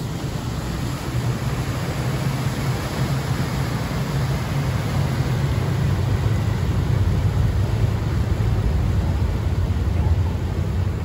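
Passenger boat under way: a steady low engine and propeller rumble with the rushing of its churning wake, slowly getting a little louder.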